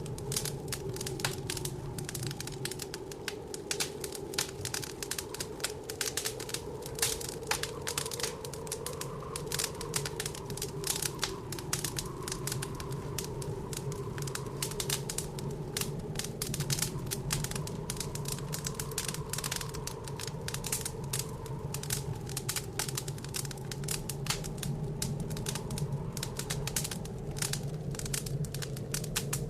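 Wood fire in a fireplace crackling, with rapid, irregular pops and snaps, over a steady, wavering howl of blizzard wind.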